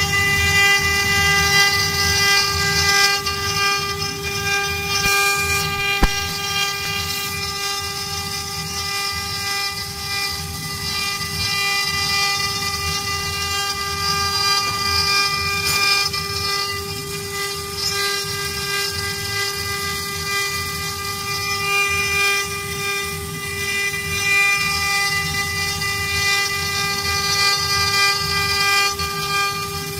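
Four-head Windcam CNC wood carving router cutting a relief into a wooden block: the spindles give a steady high whine at one unchanging pitch with overtones, over a low rumble of cutting. A single sharp tick about six seconds in.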